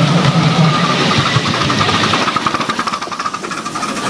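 Ride-on miniature steam train rolling past, its passenger cars' wheels running over the rails with a fast, even clatter that dips a little about three seconds in.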